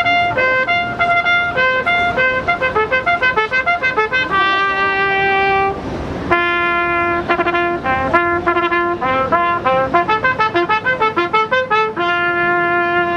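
A trumpet plays a melody of quick, short notes, broken by a few long held notes.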